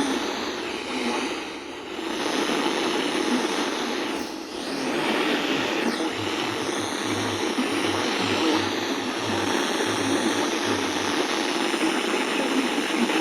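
Steady radio static hiss between alert broadcasts, dipping briefly twice, with a low pulsing buzz coming in after about six seconds.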